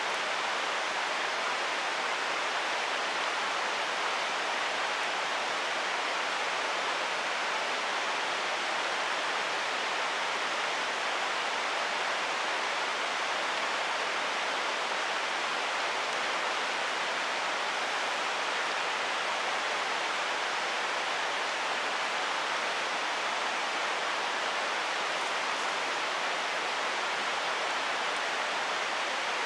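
Mountain stream water rushing in a steady, even hiss.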